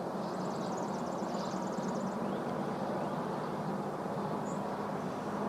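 Steady low hum and hiss of outdoor background noise, with a faint high bird trill in the first two seconds.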